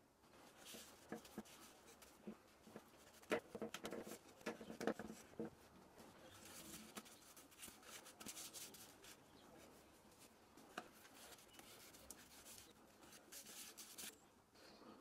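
A hand rubbing over the inside of a lime (linden) wood bowl held still on the lathe: faint scratchy strokes in spells, with a cluster of sharp knocks and clicks about three to five seconds in.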